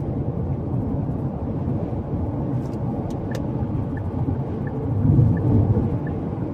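Road noise inside a car cabin at freeway speed: a steady low rumble of tyres and engine that swells briefly about five seconds in. Faint light ticks repeat about every 0.7 seconds through the second half.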